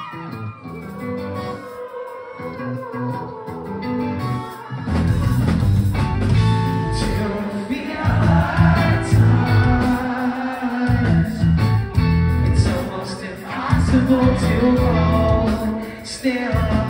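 Post-hardcore band playing live, heard from the audience: electric guitar and singing over a sparse opening, with drums and bass coming in about five seconds in and the music growing louder and fuller.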